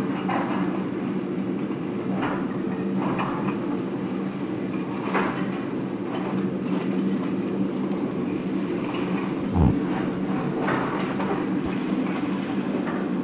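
Excavator engine running steadily while its bucket tears at a masonry wall, with irregular crunching and clattering of breaking rubble and one heavier low thud about three quarters of the way through.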